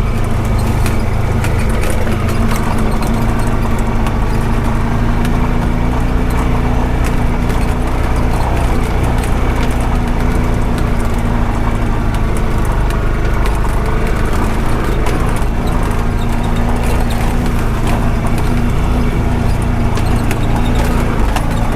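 Honda Pioneer 520 side-by-side running steadily under way, its engine drone mixed with frequent clicks and knocks of rattling and jolting.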